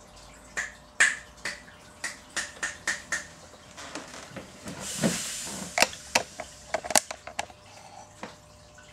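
Sharp clicks and knocks from a glass reptile terrarium being handled as a feeder rat is put in. A brief hiss about five seconds in, then a quicker run of clicks.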